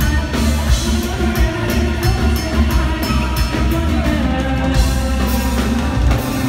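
Live band playing with women singing: drum kit with a steady cymbal beat, heavy bass, electric guitar and keyboard, loud throughout.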